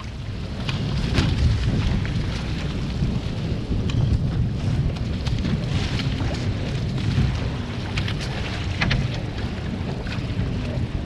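Wind rumbling on the microphone, with water splashing and slapping against the hulls of a Hobie 16 catamaran sailing through choppy water. The rumble grows louder about a second in.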